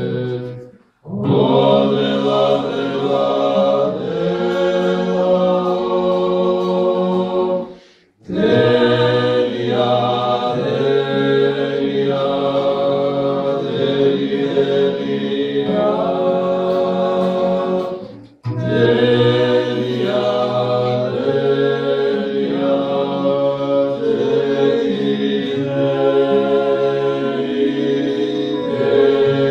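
Male vocal ensemble singing a Georgian polyphonic folk song in several parts, low held notes beneath the moving upper voices. The singing stops briefly three times, about 1, 8 and 18 seconds in, between phrases.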